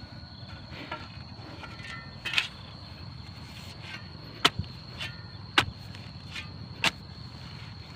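Steel shovel blade striking and cutting into dry, stony soil to dig up a dahlia clump. There is a series of sharp scraping strikes about a second apart, four of them loud.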